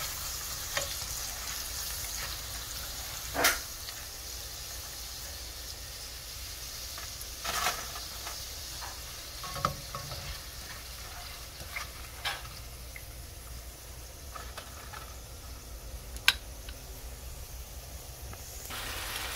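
Hot oil sizzling steadily as shredded potato and onion deep-fry in a pan. Scattered sharp clicks and knocks come from chopsticks and a wire-mesh strainer against the pan. The sizzle cuts off near the end.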